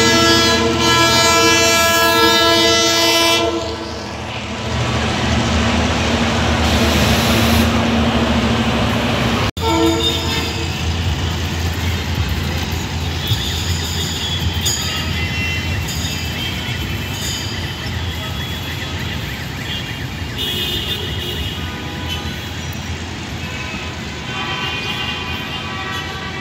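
Abu Qir line commuter train running on its tracks, opening with a long sustained horn tone for the first few seconds, then the rushing noise of the train in motion. After a sudden cut comes steady rail noise with brief high wheel squeals.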